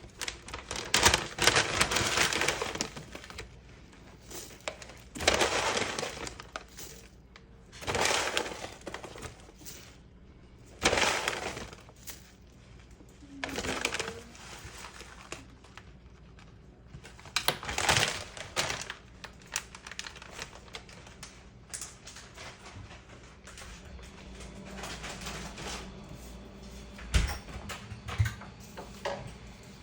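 Dry crackling and rustling in about ten separate bursts of a second or so, at irregular spacing with quieter stretches between.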